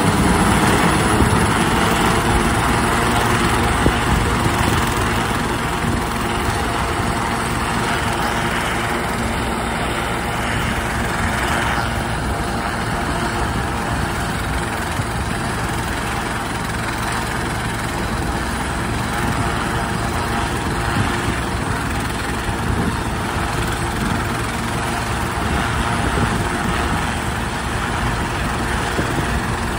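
Medical helicopter running on the ground at idle: a steady turbine whine and rotor noise that holds level.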